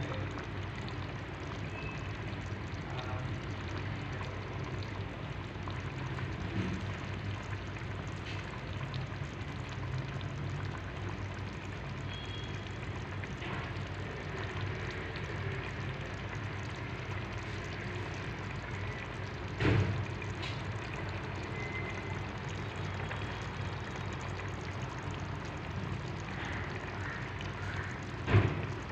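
Meat and tomato stew simmering in a pot, with a steady bubbling over a low hum. Two brief knocks, the loudest sounds, come about twenty seconds in and near the end.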